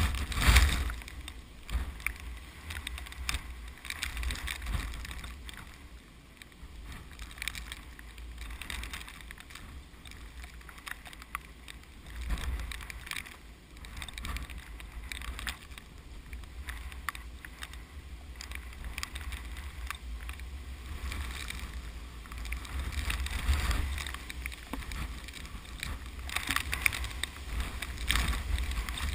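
Strong typhoon wind gusting and buffeting the microphone, with a low rumble and rushing noise that swell and ease every few seconds, along with the rustle of wind-whipped rice plants.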